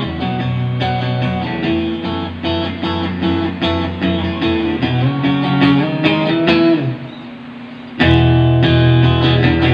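A recorded guitar track played back as an MP3 from a USB stick through a budget USB mixer: rhythmic plucked guitar notes over low notes. It dips briefly just before eight seconds in and comes back noticeably louder.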